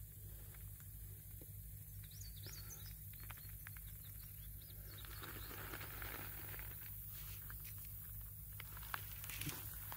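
Faint clicks and scrapes of river pebbles being moved by hand over gravel, with a few louder clicks near the end.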